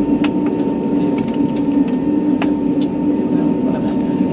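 Airliner cabin noise: a steady engine drone with a thin, constant whine and scattered light clicks and rattles.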